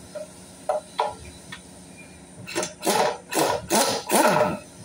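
Pneumatic impact wrench run in short trigger bursts on the oil pan bolts of an engine block. There are two light clicks about a second in, then four or five quick bursts in the second half, each dropping in pitch as the tool spins down.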